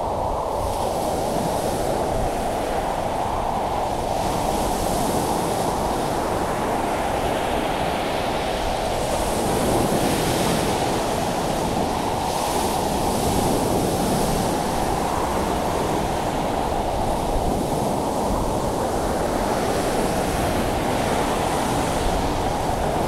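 Ocean surf breaking on a beach, with wind: a steady rushing, its hiss swelling up and falling back every few seconds.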